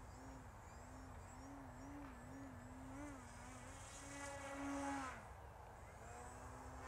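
Distant buzz of the E-flite Night Timber X's electric motor and propeller, its pitch wavering up and down as the throttle is worked through aerobatics. It is loudest about four to five seconds in, then drops away sharply, and comes back near the end.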